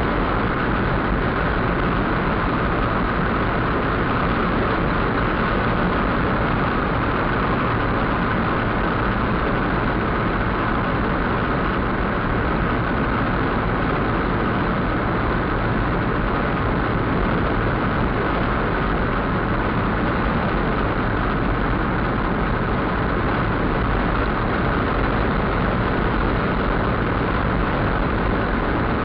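Steady road and engine noise inside a car's cabin while cruising at highway speed, an even hiss and rumble with no distinct events.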